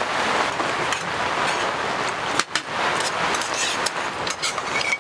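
Heavy rain falling on tent fabric, a steady even hiss, with a few sharp clicks of spoons against steel camping cups.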